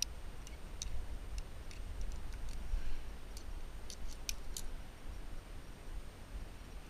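Sharp metallic clicks of carabiners and quickdraws on a climber's harness: about a dozen scattered clicks, bunched together near the middle, over a low steady rumble.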